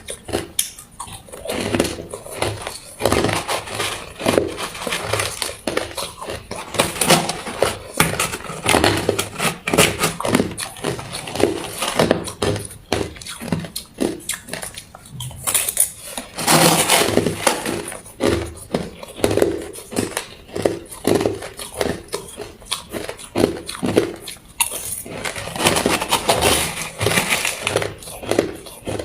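Ice being bitten and chewed: a dense, irregular run of crunching and cracking, with the loudest stretches of crunching a little past halfway and again near the end.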